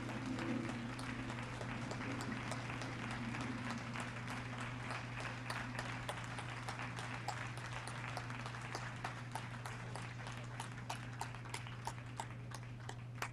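Audience applauding: dense clapping that thins out over the second half into scattered individual claps, with a steady low hum underneath.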